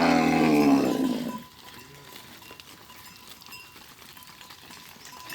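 A farm animal gives one long, drawn-out call lasting about a second and a half at the start, then only faint background remains.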